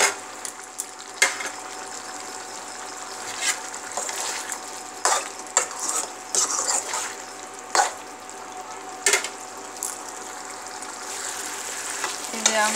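A steel ladle stirring bottle gourd curry in a steel pan, scraping and knocking against the pan at irregular intervals, over the steady sizzle of the curry cooking down on the stove.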